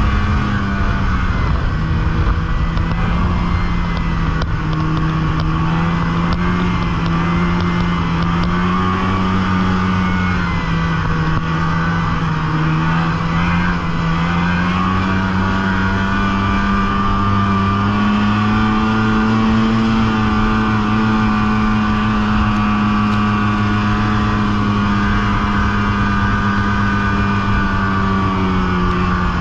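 Snowmobile engine running under way. Its pitch drops a little about a second in, climbs again midway, and eases near the end as the throttle changes.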